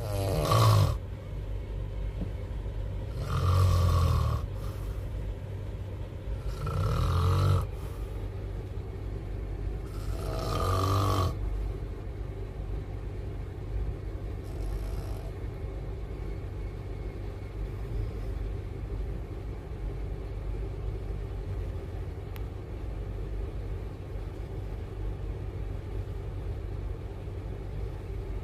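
A person snoring loudly four times, about three and a half seconds apart, each snore a drawn-out rasping breath lasting about a second; the snoring stops after about eleven seconds. Under it runs the steady low rumble of a moving train.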